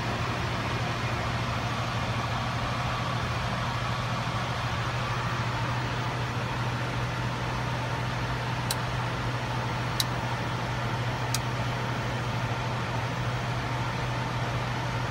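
Steady cockpit noise of a Bombardier Global 6000 business jet in high-altitude cruise: an even rush of airflow over a low hum. Near the middle there are three short, high clicks about a second and a half apart.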